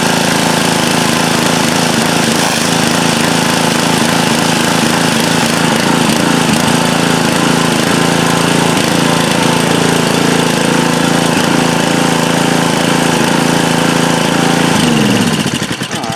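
Honda GC160 single-cylinder engine on a pressure washer running steadily, then shut off about fifteen seconds in, its pitch falling as it winds down to a stop.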